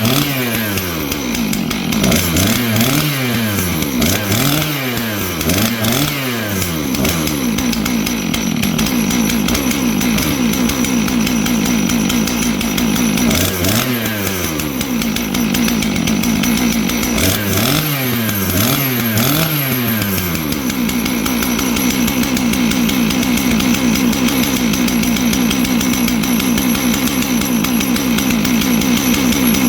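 Two-stroke engine of a 661-style clone chainsaw kit running and being blipped: the revs swing up and down several times in quick succession early on, again once in the middle and three times more later, holding a steady high speed in between, as the finicky carburettor is tuned.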